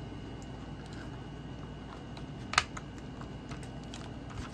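Faint scattered clicks and light taps of plastic toy packaging being handled, with one sharper click about two and a half seconds in, over a low steady hum.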